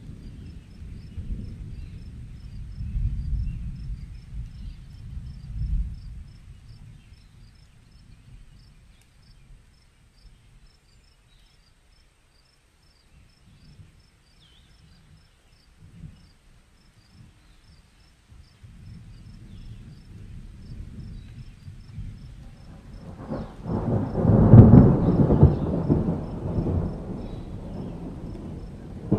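Thunder rolling as a low rumble that dies away after about six seconds, then a louder, deeper roll swelling up from about 23 seconds in.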